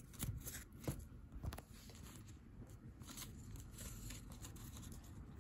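Faint rustling and crinkling of paper cutout figures being handled, with a few soft clicks in the first second and a half, then only faint room noise.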